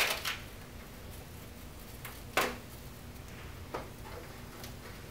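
Hands working a carpet strip into the ball polisher's housing: a few short scraping and snapping handling noises, the loudest at the start and about two and a half seconds in.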